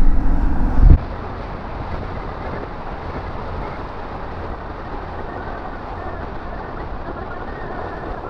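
Loud low vehicle rumble for about a second that cuts off suddenly, then a steady even hiss of vehicle noise with a faint low rumble.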